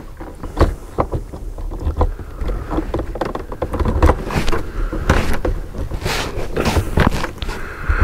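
Handling noise from a car door speaker being installed: small plastic clicks, taps and rustling as a tweeter's wire plug is clipped on and the tweeter is pressed into the door trim, over a low steady rumble.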